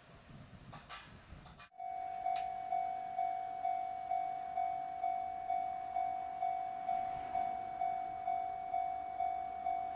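Japanese railway level-crossing warning bell starting about two seconds in, ringing a single electronic tone about twice a second. The bell is the warning that a train is approaching the crossing.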